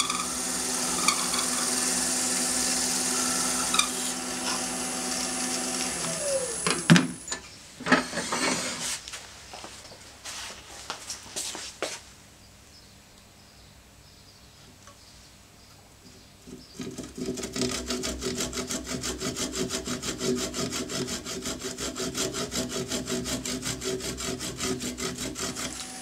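A wood lathe runs steadily and then spins down about six seconds in, followed by a few knocks. From about two-thirds of the way through, a brass-backed hand saw cuts through the small ebony knob blank held in the lathe chuck with quick, even strokes, parting it off, over a steady hum.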